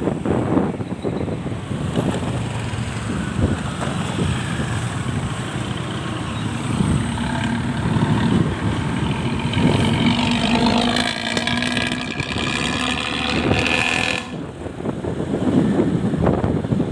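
Vehicle engine running through a full Basuri aftermarket exhaust with a raspy, pulsing growl. From about seven seconds in, a whistling tone builds and rises in pitch with the revs, then cuts off abruptly at about fourteen seconds, leaving the rumble.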